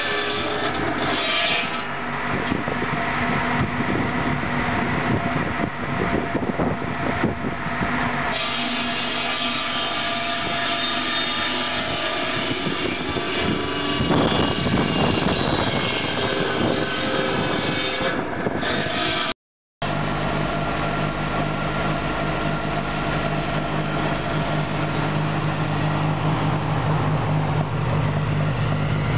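A belt-driven circular saw bench cutting firewood logs, the blade biting into the wood over the running engine of a Ferguson FE35 petrol tractor that drives it. After a sudden break about two-thirds of the way through, the tractor engine runs steadily on its own.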